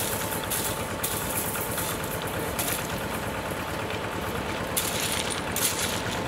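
Small engine idling with a fast knocking beat, under a hiss that swells and fades in bursts.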